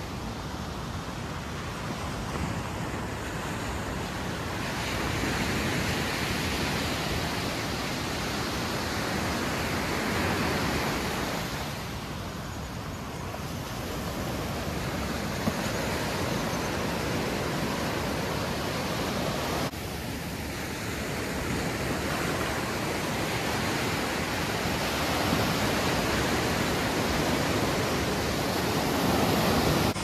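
Ocean surf: small waves breaking and washing up the sand, a steady rushing that swells and eases as each wave comes in.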